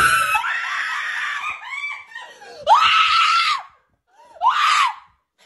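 Screaming in a high voice: one long scream, then two shorter ones about a second apart.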